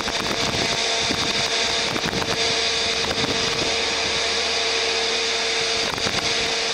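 Distant freight train hauled by three EMD SD40-series diesel locomotives approaching: a steady drone and hiss with one constant mid-pitched hum.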